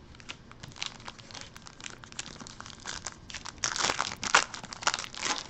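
Foil wrapper of a football trading card pack crinkling as it is handled and torn open, with dense crackles that grow louder in the second half.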